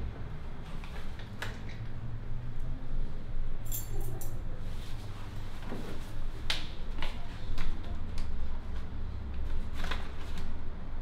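A steady low drone under scattered handling noises: a brief jingle of keys about four seconds in, then clicks and paper rustles as a paper envelope is handled near the end.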